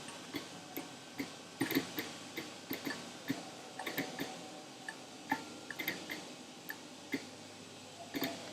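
Light, irregular clicks and ticks, a couple of dozen of them, from a 1/4 inch Allen wrench turning and seating the single bolt that holds the master rotor in a spin rinse dryer.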